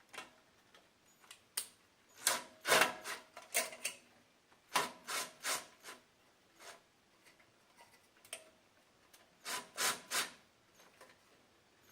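Short rasping, scraping strokes in three clusters, from a self-tapping screw being driven by hand into the snowblower's sheet-metal housing.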